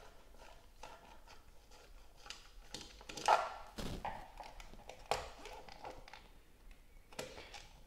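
Small screwdriver backing out the screws of a plastic double socket faceplate, then light clicks and knocks as the faceplate is worked off the metal back box. The loudest knock comes about three seconds in.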